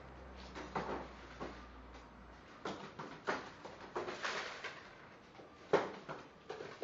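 A puppy and a rabbit moving about on a wooden floor and into a wire cage: scattered light taps, knocks and scuffles, one sharper knock near six seconds.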